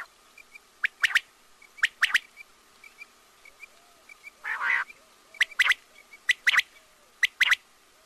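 Quail calling: sharp, clipped notes in quick groups of two or three, repeated every second or so, with one longer, rougher call about halfway through.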